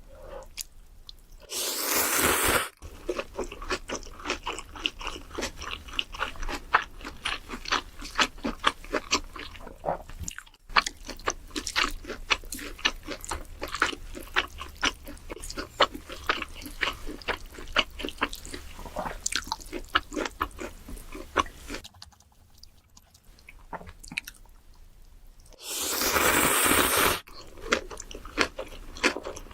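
Close-miked chewing: a person crunching food with rapid crisp clicks, pausing briefly, with two louder bursts of noise of about a second each, one near the start and one near the end.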